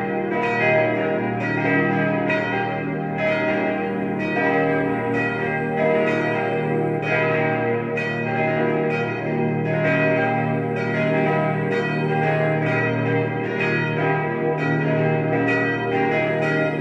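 Several swinging bronze church bells from a five-bell peal cast by Czudnochowsky of Erding in 1951 and 1953, ringing together. Their strikes overlap in an unbroken, irregular stream over a sustained deep hum.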